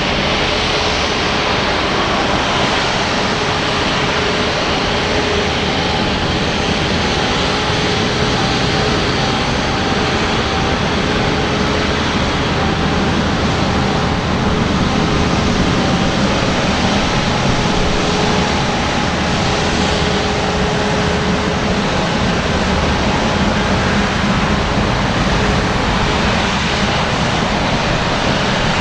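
Airbus A350-900's Rolls-Royce Trent XWB jet engines running at low thrust while the airliner taxies: a steady, even jet rumble and hiss with a faint steady whine.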